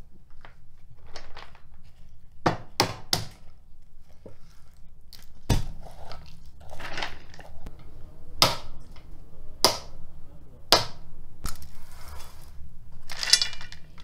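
Walnuts being cracked open on a wooden board: about seven sharp, hard knocks at irregular intervals, with softer rustling and rattling of shells and grain between the strikes.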